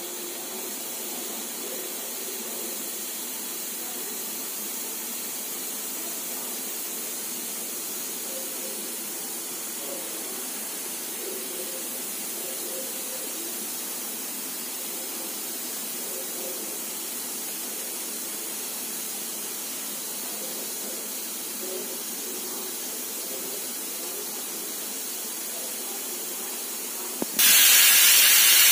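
Stovetop pressure cooker hissing steadily as it builds pressure; near the end its weight valve suddenly lifts and steam rushes out in a loud whistle-hiss, the sign that the cooker has reached full pressure.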